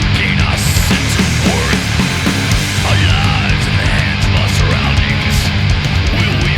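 Loud heavy rock music, laid over the video as a soundtrack.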